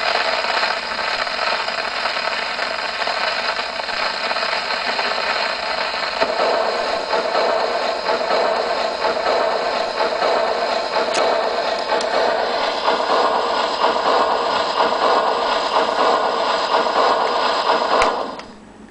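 Steel needle in the HMV Model 102 gramophone's sound box running in the run-out groove of a 78 rpm shellac record after the music has ended, giving a steady surface noise with a few clicks through the horn. It cuts off suddenly near the end as the tone arm is taken off the record.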